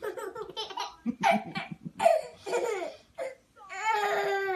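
A baby laughing in short bursts, then letting out one long, high-pitched squeal near the end.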